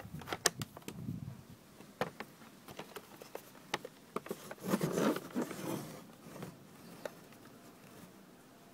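Hands handling and turning a Grundig C420 portable cassette recorder: scattered sharp clicks and knocks from its casing, with a burst of rubbing and scraping about five seconds in.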